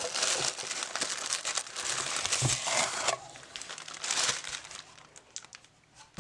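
Packaging crinkling and rustling as a package is unwrapped by hand: dense rustling for about three seconds, a short burst about four seconds in, then quieter light handling.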